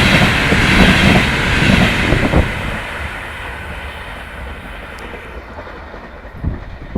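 Fast passenger train hauled by a ChS7 electric locomotive passing at high speed: rushing wheel-on-rail noise with clickety-clack from the coaches. It fades away from about two and a half seconds in as the train recedes.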